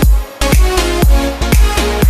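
Electronic dance backing music with a steady beat, about two kick-drum hits a second under sliding bass notes and synth chords.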